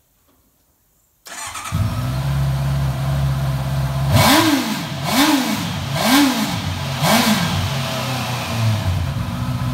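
Honda CBR650R's inline four-cylinder engine starting about a second in and settling to idle, then revved in four quick throttle blips about a second apart before dropping back to a steady idle.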